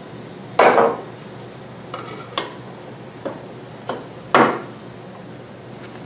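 A small metal can and a wooden stir stick being handled and set down on a wooden workbench: two loud clanks with a short ring, one about half a second in and another about four and a half seconds in, and four lighter knocks in between.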